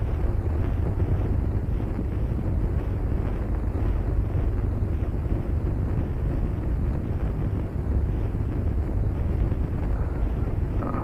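Steady low rumble of background noise with no distinct sound events.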